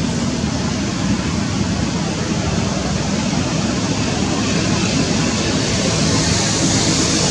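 Steady rushing background noise with no distinct events, growing slightly louder and hissier near the end.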